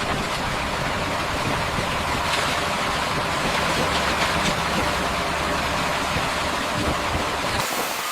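An engine running steadily, a constant low rumble with a broad hiss over it; the sound changes abruptly near the end.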